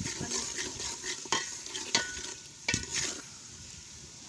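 Onion-and-chilli masala frying in oil in a cooking pot, with a steady sizzle, while a spoon stirs it and knocks sharply against the pot four times. The stirring eases off near the end.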